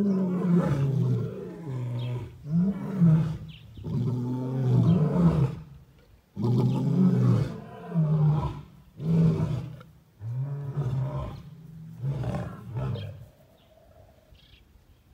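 Lionesses snarling and growling at each other in a fight, the one cornered on the stone hut calling back defensively: a run of loud, low calls of about a second each, dying away near the end.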